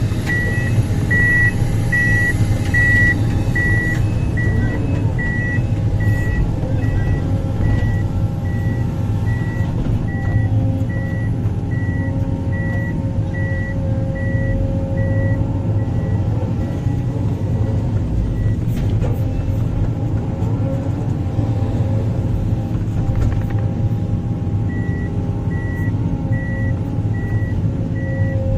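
Diesel engine of heavy earthmoving machinery running steadily, with a back-up alarm beeping about one and a half times a second through the first half. The beeping stops near the middle and starts again near the end.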